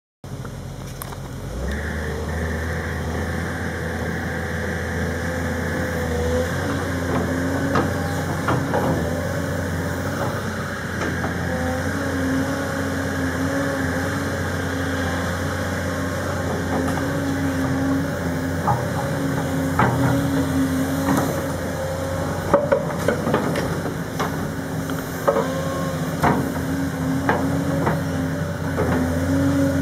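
Case CX210 tracked excavator's diesel engine running steadily while it digs soil, with scattered sharp clanks and knocks from the bucket and boom that come more often in the second half.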